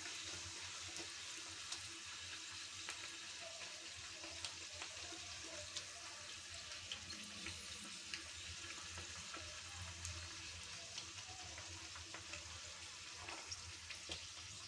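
Poori deep-frying in hot oil in a steel pan: a faint, steady sizzle with scattered small pops, easing off slightly. The sizzle settling down is the cook's cue that the poori is done and ready to lift out.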